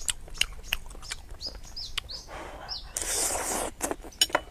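Close-miked chewing of squid, with sharp wet mouth clicks throughout, and a bird giving three short falling chirps about a second and a half in. Around the middle comes a hiss of noise lasting about a second and a half.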